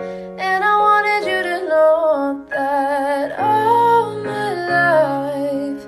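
Background music: a slow, gentle song, a sung melody gliding between held notes over sustained keyboard chords.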